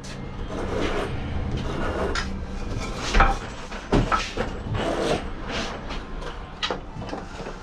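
Irregular knocks, clunks and scraping of hand work, with about half a dozen sharper knocks among steady rubbing and handling noise.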